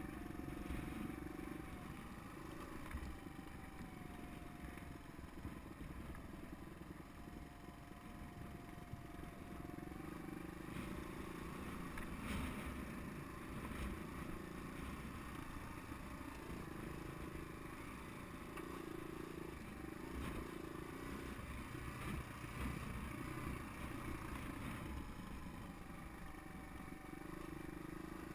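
Suzuki DR200's single-cylinder four-stroke engine running at low speed over a rough dirt track, its note rising and falling with the throttle over a constant low rumble from the bumpy ride.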